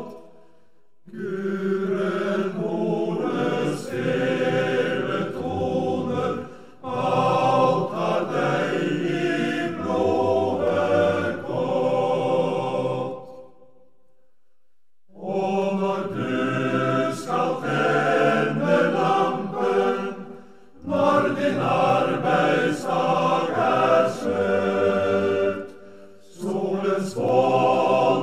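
Background vocal music: chant-like singing in long phrases, broken by short pauses.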